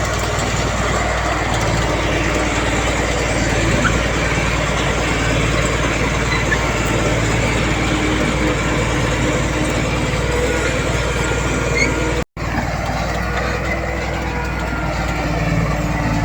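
Heavy diesel earthmoving machinery running steadily under load. The sound drops out completely for an instant about twelve seconds in.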